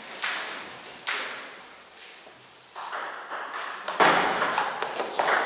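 Table tennis ball clicking off the bats and the table in a rally, each hit echoing in a large hall. Two single clicks in the first second, then a quicker run of hits from about three seconds in, loudest near the end.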